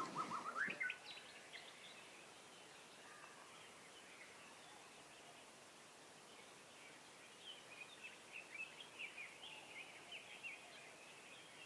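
Faint birdsong: scattered short, high chirps over quiet room tone, sparse at first and busier in the last few seconds.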